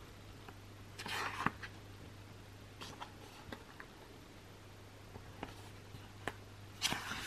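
Pages of a glossy album photobook turned by hand: two papery swishes, about a second in and near the end, with light ticks and taps of paper and fingers between.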